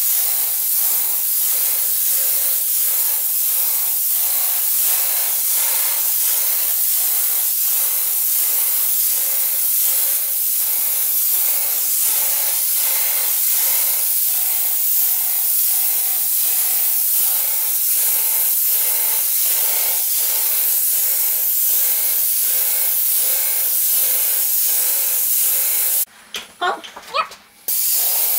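Wagner Control Pro 250M airless paint sprayer's gun spraying paint: a steady, loud hiss with a faint pulsing about twice a second. Near the end the spray cuts off for about a second and a half, then starts again.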